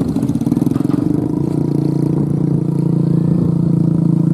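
Motor vehicle engines: motorcycles passing close by and a heavily loaded truck climbing the road. The engines settle into a steady low drone about a second and a half in.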